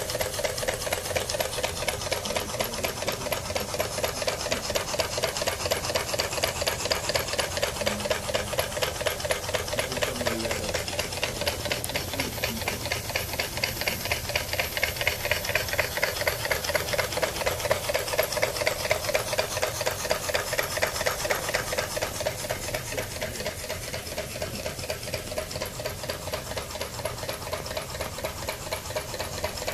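Homemade mini steam engine running at speed, its cylinder and connecting rods making a rapid, even, clattering rhythm. It drops a little in loudness for a few seconds near the end.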